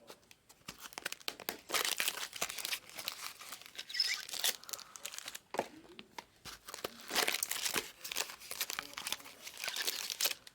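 Packaging being handled and crinkled: a dense run of rapid crackles that swells and fades several times.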